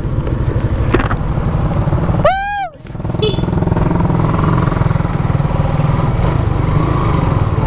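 Suzuki Raider 150 Fi's single-cylinder engine running steadily while the bike is ridden. About two seconds in there is a short, loud call that rises and falls in pitch, then the sound dips briefly.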